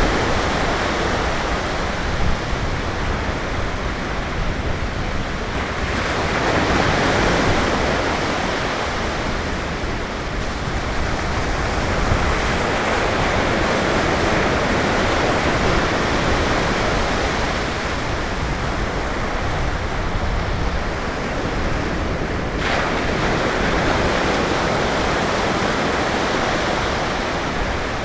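Ocean surf breaking and washing up the beach: a continuous loud rush that swells and eases every several seconds.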